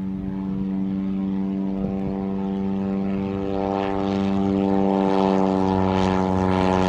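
Lake LA-4-180 amphibian's 180 hp Lycoming four-cylinder engine and pusher propeller at takeoff power, a steady low propeller drone with many overtones as the plane lifts off and climbs. It grows steadily louder as the plane comes closer.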